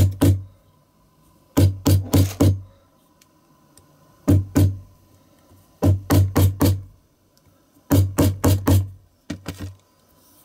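Hammer blows struck through a rubber stopper onto a bent diecast toy ladder lying on a wooden block, straightening it. Dull thuds come in quick groups of three or four, with short pauses between the groups.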